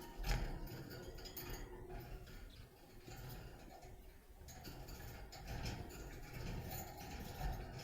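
Budgerigars making scattered small clicks and taps over a low rumble, with no clear chirping.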